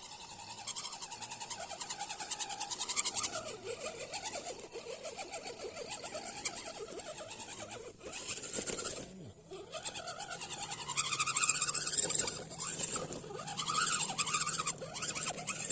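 Electric motor and gear train of a 1:10 scale RC crawler whining as it drives, the pitch rising and falling with the throttle.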